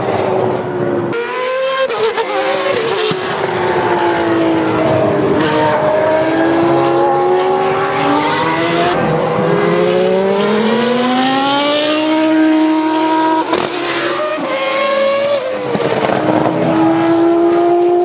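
Formula 1 cars' engines at high revs on track, the pitch climbing and dropping as they accelerate, shift gears and brake, with a long rising pull near the middle. The sound changes abruptly about a second in.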